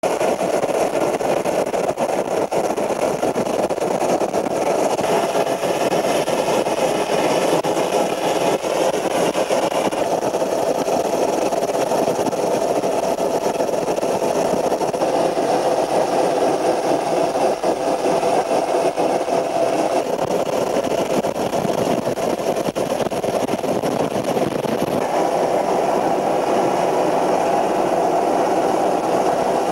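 Steady engine and rotor drone of a helicopter, heard from on board.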